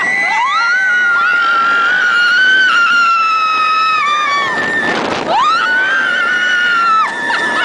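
Roller coaster riders screaming: one long high scream held for about four and a half seconds, then, after a short rush of noise, a second shorter one, with another voice holding a steady note underneath.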